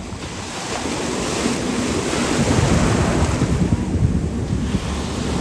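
Ocean surf washing and breaking around the microphone, swelling about a second in and easing a little over four seconds in, with wind buffeting the microphone.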